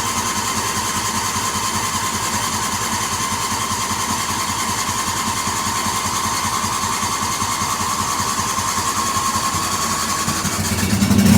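John Deere GT235 lawn tractor engine running steadily at full throttle just after a choked start, with a fast even pulse and a high whine over it. Near the end the sound grows louder and deeper.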